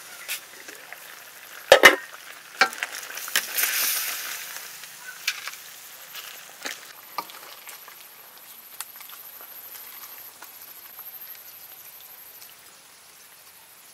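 Steel ladle clanking and scraping against a hot wok while scooping curry, the loudest clank about two seconds in, with a swell of sizzling hiss around four seconds in that fades to a faint steady simmer.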